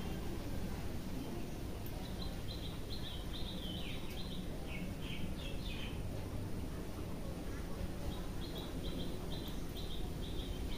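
Hands rubbing and working over a person's scalp and hair in a head massage, a steady rustling noise. Runs of short, evenly repeated high chirps come twice in the background.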